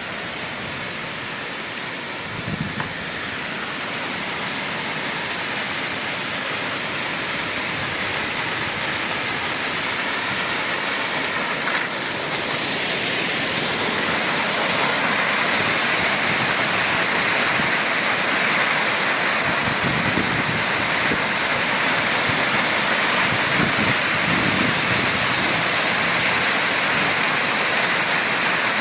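Waterfall: falling water making a steady rushing, getting gradually louder over the first half and then holding.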